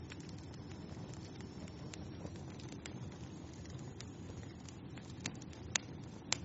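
Fire crackling in a fireplace: a steady low rumble of burning under scattered sharp pops and snaps, the two loudest pops near the end.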